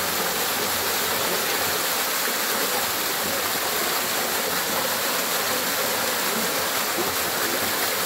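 Small waterfall pouring down a rock face onto a person and into a shallow pool: a steady, unbroken rush of splashing water.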